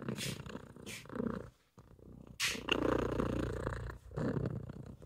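Domestic cat purring close to the microphone, in long stretches with a short break about a second and a half in.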